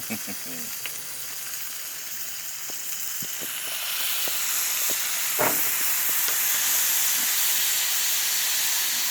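Food sizzling and steaming on a Blackstone flat-top griddle. The hiss grows louder about three to four seconds in, with a few light taps.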